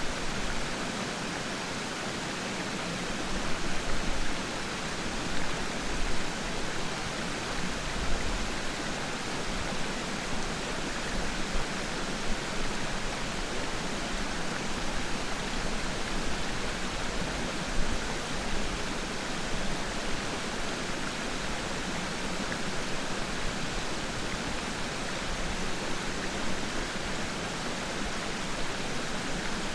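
Steady rush of water at Peiran Falls, falling and flowing water making an even, continuous roar with occasional small surges.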